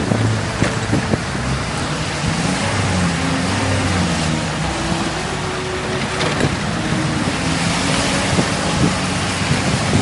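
Box truck's engine revving up and down as the truck strains to pull out of a deep snowbank, over a steady hiss.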